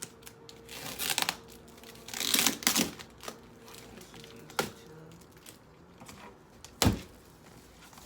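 Cardboard box being opened by hand: packing tape and cardboard tearing and rustling in several short bursts, with one sharp thump near the end.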